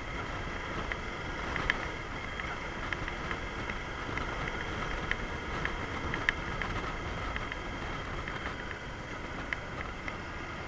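Yamaha DragStar Classic motorcycle on the move, heard through its handlebar-mounted action camera as a steady rush of wind and road rumble with the engine underneath. Scattered sharp ticks come through now and then.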